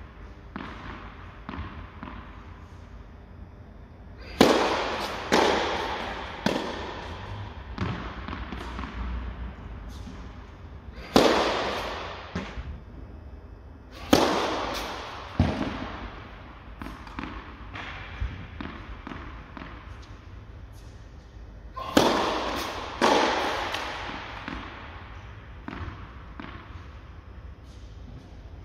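Tennis balls struck hard by rackets and bouncing on the court, each hit a sharp crack that echoes through a large indoor tennis hall. Three short bursts of play, each a few strikes and bounces, with quiet gaps between points.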